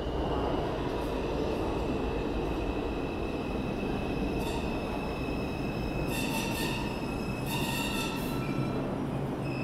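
New York City subway train running into the station on the far track, with a continuous low rumble of wheels on rail. A high metallic squeal sounds throughout and swells in several bursts from about halfway, as the train slows.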